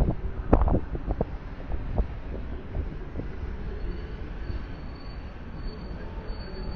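City street traffic rumbling steadily, with wind gusting on the microphone in a few sudden low bumps near the start and a faint thin high whine in the second half.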